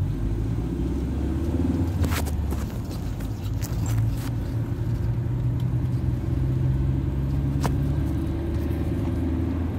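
Car engine and road noise heard from inside the cabin as the car pulls away from a stop and gathers speed: a steady low hum with a few faint clicks.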